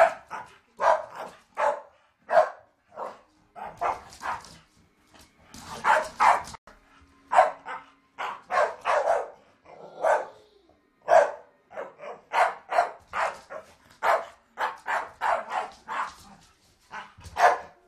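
Staffordshire bull terriers barking while play-fighting: short, sharp barks coming in quick runs of two to four, with brief pauses between.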